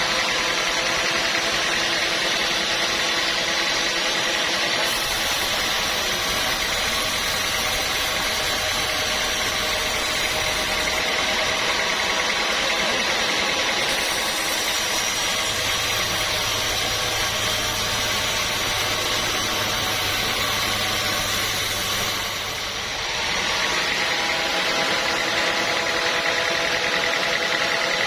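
Sawmill machinery running steadily, a constant mechanical drone with a steady whine in it, dipping briefly about 22 seconds in.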